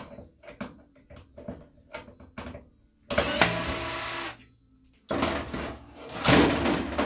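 Parkside drill-driver running briefly to back a screw out of an electric heater's casing, between light clicks and knocks of handling. Near the end the metal heater housing is shifted on the bench with a louder scraping rattle.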